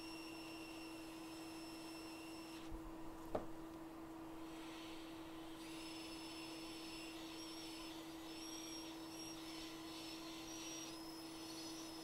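Steady low electrical hum from workbench equipment, with faint high-pitched whines that cut out about three seconds in and come back midway. A single sharp tick about three seconds in.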